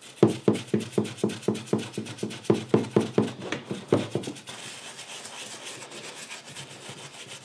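A small brush scrubbing a Briggs & Stratton lawn mower engine part soaked in cleaner/degreaser: a quick back-and-forth rasp of about four strokes a second, each with a brief squeaky ring. About four seconds in it drops to a quieter, steady scrubbing hiss.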